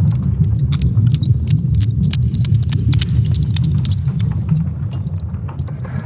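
Sonification of Earth's magnetic field built from ESA Swarm satellite data: a dense, low rumble under a high, fluttering hiss, broken by many irregular crackles and clicks.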